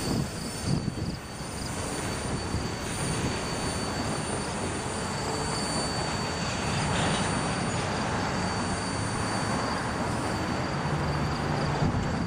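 Freight train cars rolling past on jointed track, a steady rumble and clatter of wheels on rail with a thin, steady high-pitched squeal over it.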